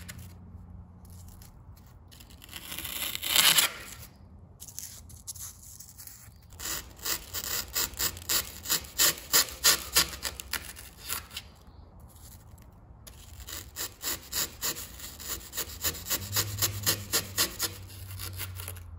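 Steel wood chisel scraping through rigid foam, breaking out the raised strips left between router channels. One longer scrape comes first, then two runs of quick rasping strokes at about four a second.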